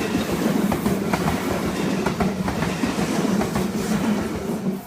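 Train passing over a railway level crossing: a steady rumble with the wheels clacking over the rail joints. It cuts off sharply just before the end.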